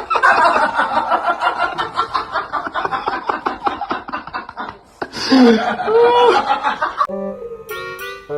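A person laughing hard in a long run of quick bursts for about five seconds, then a shorter stretch of sound with sliding pitch. Plucked-string music starts near the end.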